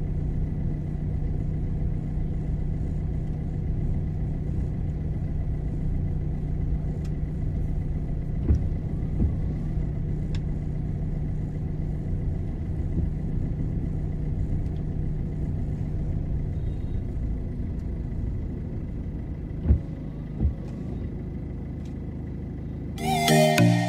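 Ford Figo Aspire car running, heard inside the cabin as a steady low hum of engine and road noise, with a few short knocks, the loudest about three seconds before the end. Electronic music comes in just before the end.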